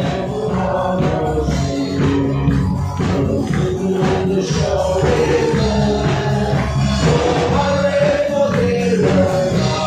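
Congregation singing a worship song together, led by singers at microphones, with acoustic guitar and rhythmic hand-clapping.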